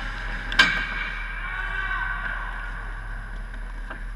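Ice hockey skates scraping and gliding on rink ice, with one sharp clack from the play around the net about half a second in.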